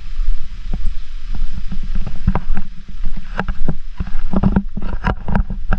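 A moving vehicle's low rumble, with frequent sharp knocks and rattles at irregular times.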